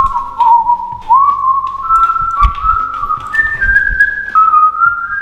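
A person whistling a tune, one clear melody of held notes with short upward slides into some of them. Footsteps on the stairs thud underneath.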